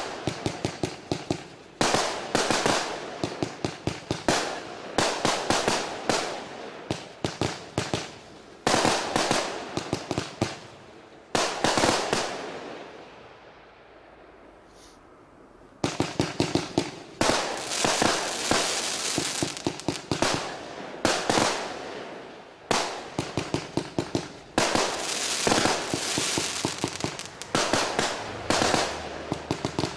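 Lesli McFat 144-shot, 25 mm compound firework cake firing shot after shot in quick volleys, each launch and burst a sharp pop. About midway the firing stops for some three seconds, then resumes just as densely.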